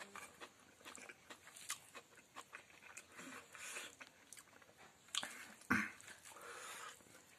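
Close-up chewing and lip-smacking of a man eating rice with fried chicken intestine and pork fat by hand, in a run of short wet clicks. There is one louder knock about three-quarters of the way through.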